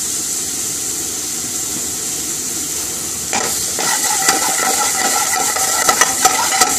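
Chopped peppers and chili sizzling in hot oil with curry powder in an aluminium frying pan over a gas flame. About three seconds in, the pan is shaken and a metal ladle starts scraping and clicking against it over the sizzle.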